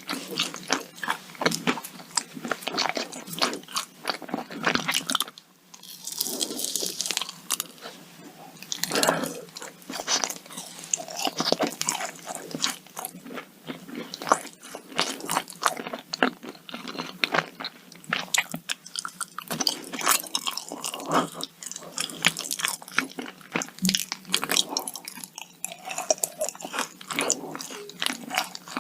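Biting into and chewing yakgwa, a deep-fried Korean honey cookie, close to the microphone: a dense run of short crisp crunches, with a brief lull about five seconds in.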